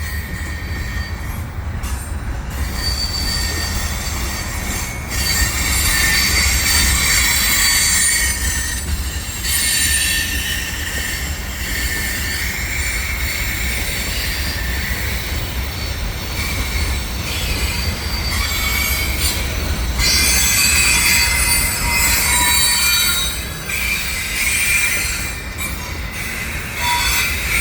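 Freight train tank cars rolling through a curve, their wheels squealing against the rails in shifting high-pitched tones over the low rumble of the train. The squeal swells louder a few seconds in and again about two-thirds of the way through.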